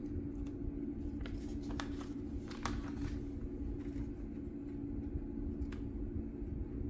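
A steady low hum with a rumble underneath, over which a paper sticker backing crinkles and ticks faintly a few times as it is handled and pressed against a phone.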